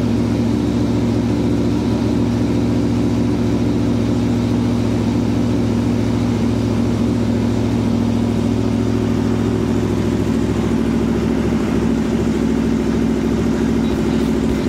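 2017 Aprilia Tuono V4 1100 Factory's V4 engine idling steadily.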